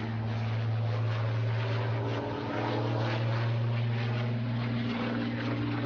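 Propeller aircraft's piston engine running at a steady drone, with no change in pitch.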